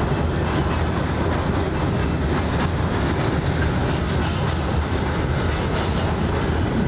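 Freight train of empty covered sand hopper cars rolling past: a steady rumble of steel wheels on the rails, with faint irregular clicks.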